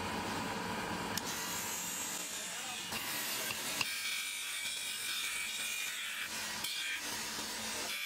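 Motor-driven grinding wheel running with a wooden knife-handle scale pressed against it, a steady abrasive hiss. The sound turns brighter and thinner about three seconds in.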